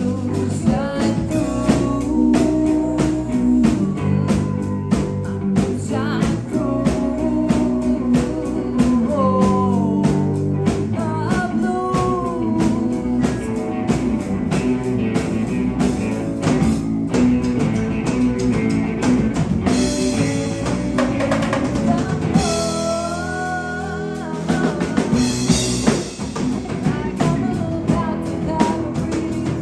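Live rock band playing an instrumental passage: electric guitars over bass guitar and drum kit, with a lead line bending in pitch. The low end drops out for a moment about two-thirds of the way through.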